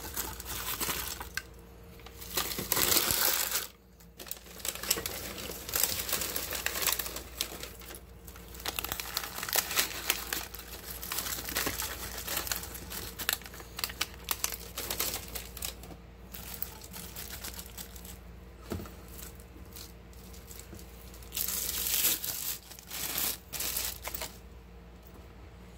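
Paper food wrappers and a paper fry pouch crinkling and rustling as fried chicken and fries are handled by a plastic-gloved hand. There are two louder bursts of crinkling, one early and one near the end, and then it dies down.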